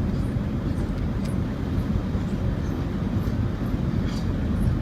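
A 2002 Ford Excursion with a destroyed wheel bearing, on the move: a steady low rumble, with faint brief high-pitched squeaks a couple of times.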